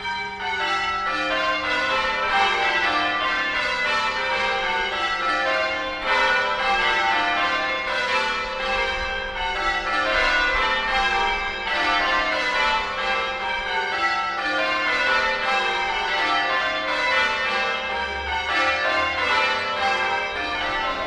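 A ring of church bells ringing changes (change ringing), the bells striking one after another in quick, even rows that keep stepping down the scale and then shifting order.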